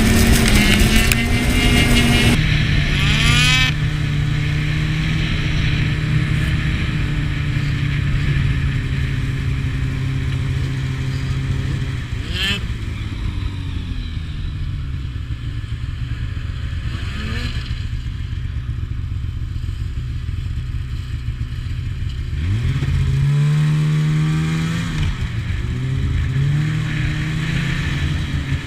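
Snowmobile engines running: a steady engine note for about the first twelve seconds, two brief pitch sweeps about halfway through, and an engine revving up and easing off near the end.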